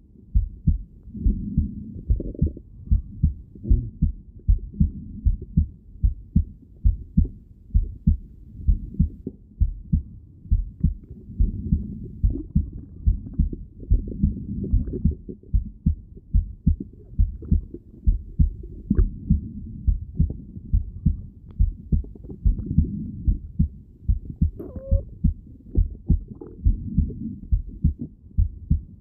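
Heartbeat heard through a stethoscope: steady, regular thumping beats, muffled and deep. A brief rising squeak comes in near the end.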